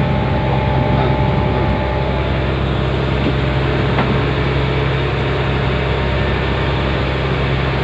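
Steel fishing trawler's inboard engine running on board, a steady low drone with a strong hum that does not change.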